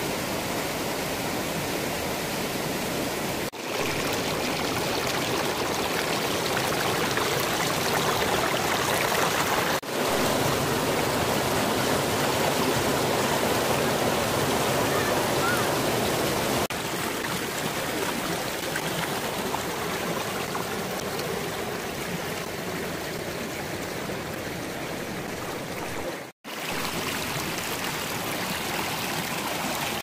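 Shallow mountain river rushing steadily over boulders in white-water rapids, water churning and pouring around the rocks. The sound breaks off briefly four times where the recording is joined, most sharply near the end.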